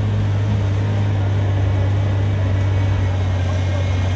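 Off-road vehicle engine running steadily with a low, even drone, no revving up or down.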